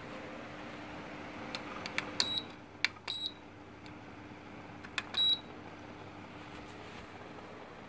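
Tower fan's cross-flow blower running with a steady hum and airflow hiss. Its control buttons click and it gives three short high beeps, and the hiss drops after the first beeps as the fan setting changes.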